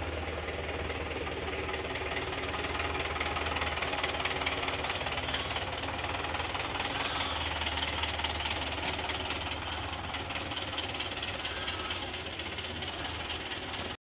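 Tractor engine idling steadily, a constant low mechanical drone.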